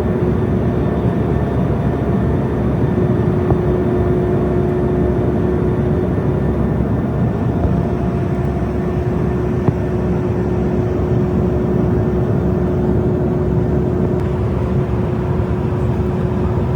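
Steady drone of an airliner cabin in flight: jet engine and airflow noise with a constant hum running through it.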